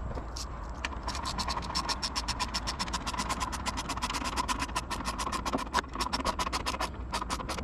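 Ratchet wrench clicking rapidly and evenly, about seven or eight clicks a second, as a fastener is turned during the cold air intake install.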